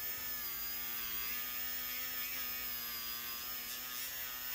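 Worx WX739 MakerX brushless rotary tool running steadily at low speed, a steady whine, as its polishing wheel buffs a metal ring with polishing compound.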